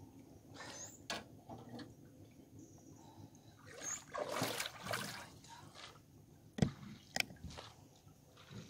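Water splashing and dripping as a freshly caught boga is handled and unhooked in the shallows, with a few sharp knocks, the loudest in the second half.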